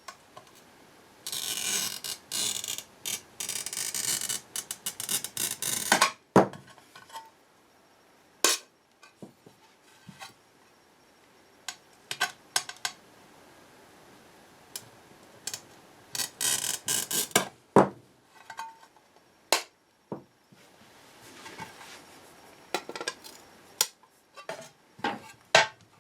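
Glass cutter scoring a sheet of glass in a few scratchy strokes, the longest about a second in and a shorter one past the middle, with scattered clicks and taps of the tool and glass between.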